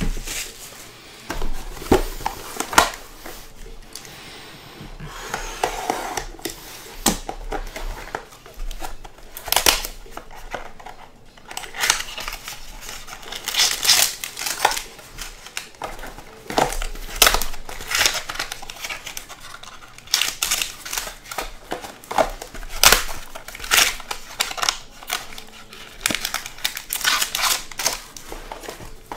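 Foil trading-card packs and cellophane wrap crinkling and tearing as they are opened by hand: irregular rustles and crackles.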